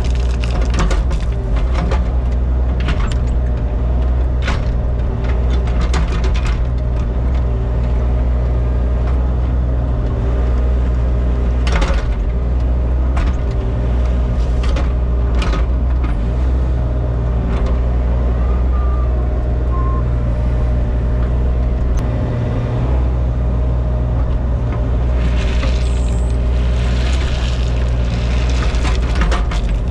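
Excavator's diesel engine running steadily under load, with scattered clanks and scrapes from the work.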